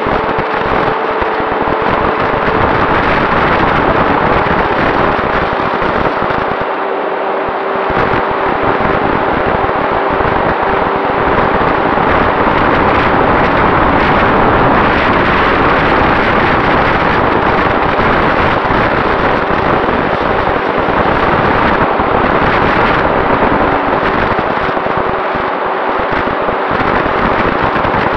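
Wind rushing and crackling over the onboard action-camera microphone of an electric FPV plane in flight, with the faint steady hum of its 2836/1200KV brushless motor and 7x5 propeller underneath.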